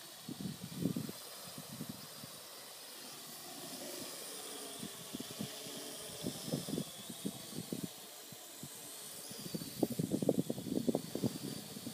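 Parrot AR.Drone quadcopter's electric motors giving a faint, steady whine over a hiss, the pitch wavering slightly as it manoeuvres. Wind buffets the microphone in irregular low gusts, heavier near the end.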